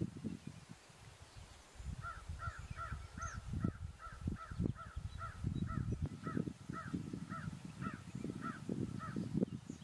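A bird calling a long series of short, repeated notes, starting about two seconds in, quick at first and then slowing, stopping shortly before the end. An uneven low rumble runs underneath.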